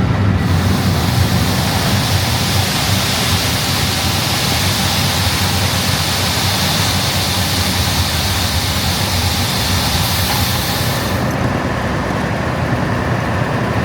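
Heavy engine running steadily, with a steady high hiss over it that starts at once and cuts off suddenly about eleven seconds in.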